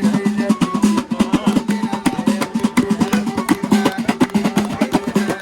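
Music with a fast, busy drum beat over a low repeating melody.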